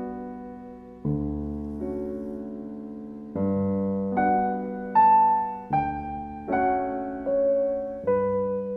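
Background music: gentle solo piano, chords and melody notes struck and left to ring, slow at first and coming about one a second after the first few seconds.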